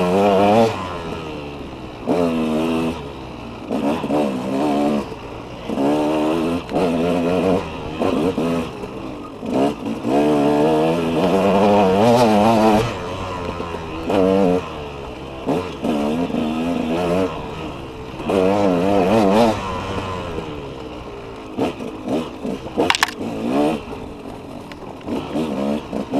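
KTM 200 two-stroke dirt bike engine revving up and falling back over and over as the throttle is opened and closed every second or two on a twisty trail. A couple of sharp knocks about three-quarters of the way through.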